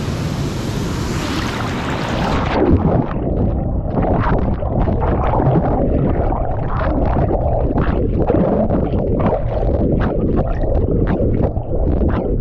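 Steady rush of the river's moving current just above the surface, which turns muffled about two seconds in as the microphone goes under. From then on the current is heard underwater: a low, dull rumble with a patter of small crackles and gurgles from bubbles.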